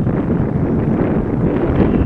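Wind buffeting the microphone: a loud, steady low rush of noise.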